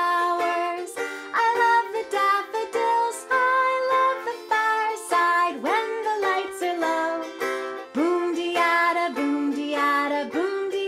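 Banjo ukulele strummed in a steady rhythm of chords, accompanying a woman singing a sing-along song.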